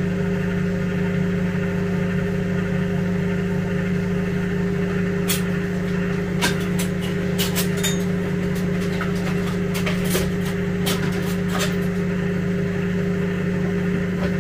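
Microwave oven running with a steady low hum while heating food. A scatter of sharp light clicks comes in the middle.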